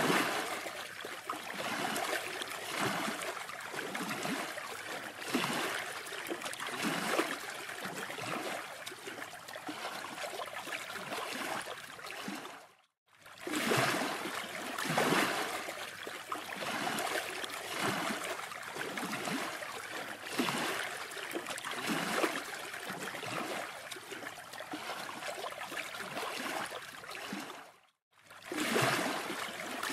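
Sea surf breaking and washing up a sandy beach, a rushing noise that swells and ebbs with each wave. It cuts out briefly twice, near the middle and near the end.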